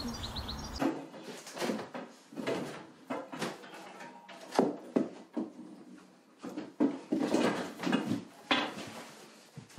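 Irregular knocks, bumps and rustles in a small room, the sounds of someone moving about and handling things, with a few sharper knocks among them.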